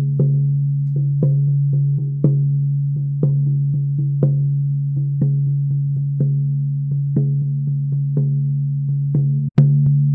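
Bison-hide frame drum on a maple hoop struck with a padded beater: a steady beat of about one strong stroke a second with lighter strokes between, each leaving a deep sustained ring. A brief break near the end, then the beating goes on.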